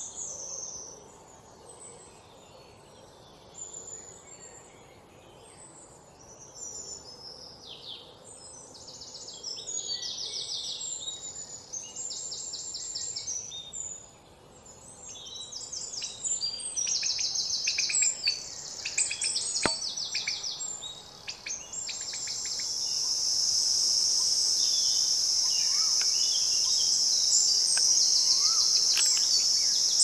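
Small birds chirping and twittering in quick, high, repeated trills. About two-thirds of the way through, a steady, high-pitched buzzing drone sets in and becomes the loudest sound.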